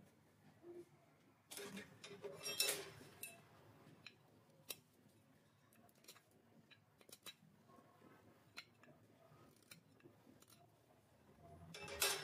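A hand-held metal blade scraping and clicking against a small turned wooden piece, in short strokes about two seconds in and again near the end, with scattered small taps in between; no lathe motor is running.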